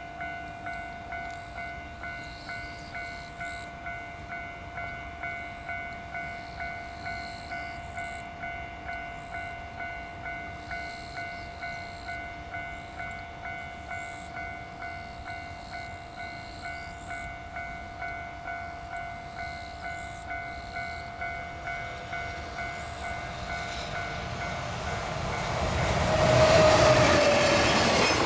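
Japanese level-crossing alarm bell ringing steadily, about two strikes a second, while the crossing is closed. About 25 seconds in, the noise of an approaching freight train hauled by a JR Freight EF210 electric locomotive rises quickly and drowns out the bell, with a brief tone at its loudest.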